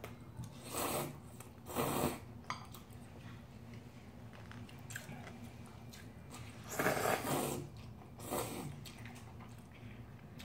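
Shin Ramyun instant noodles being slurped, four noisy slurps: two close together about one and two seconds in, then a longer one around seven seconds and a shorter one just after.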